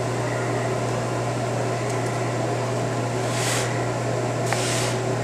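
Steady low hum under an even hiss, with two short hisses about three and a half and four and a half seconds in.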